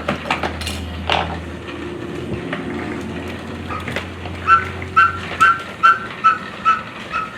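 Dog whimpering in short, high, evenly repeated whines, about two a second, beginning a little over halfway through.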